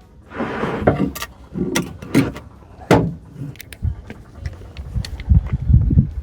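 Boards and hand tools being handled during woodworking: a short scrape, then a series of irregular knocks and clicks, and a cluster of dull thumps near the end.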